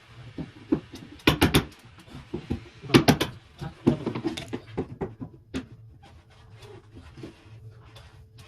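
Quick clusters of sharp knocks and clatters from objects being handled, the loudest about a second in and again about three seconds in, with lighter taps after, over a steady low hum.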